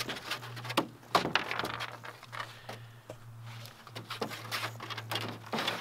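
Irregular small knocks, taps and scrapes as a puppy moves about in a canoe eating from a Kong, shifting the hull back and forth. A steady low hum runs underneath.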